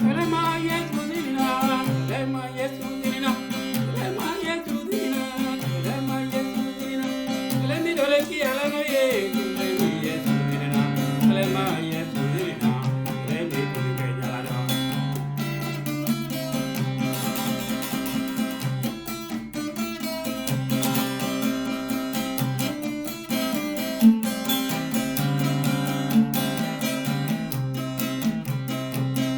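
Guitar-led music with a repeating bass line, the guitar plucked and strummed.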